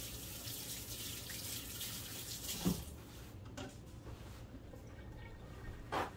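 Kitchen faucet running while hands are rinsed under it, the water stopping about three seconds in. A sharp knock comes near the middle and another near the end.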